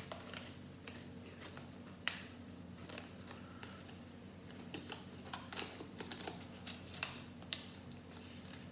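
Scissors snipping, cutting a paper bag free from a magazine cover, with light paper rustling between the cuts. A few sharper snips stand out, the clearest about two seconds in.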